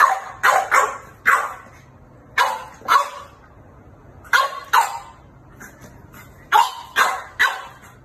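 French bulldog barking: short, sharp barks in bunches of two or three, about eleven in all.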